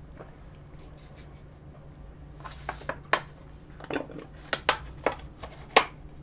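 Milk being sipped through a straw from a small triangular carton: after a quiet start, a string of short sharp clicks and crinkles from the sipping, swallowing and the squeezed carton begins about two and a half seconds in.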